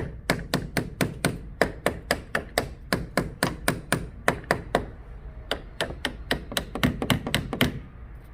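Hammer lightly tapping a stuck battery cable terminal clamp on a car battery post, rapid even taps about four or five a second with a brief pause about five seconds in, working the corroded terminal loose so it can spin free.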